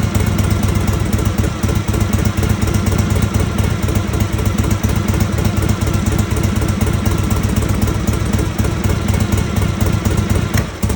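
Harley-Davidson Panhead V-twin motorcycle engine, fitted with a Mikuni carburetor, running steadily, with a brief drop in level near the end.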